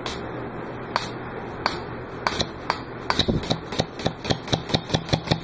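Two-stroke weed eater engine converted to run on compressed air, with a reed-switch-triggered solenoid valve: a few separate clicks, then about three seconds in it starts turning over, its air pulses coming faster and faster until about six a second.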